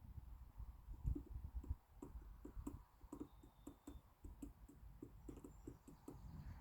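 Faint run of light clicking taps, about four a second, starting about two seconds in and stopping shortly before the end.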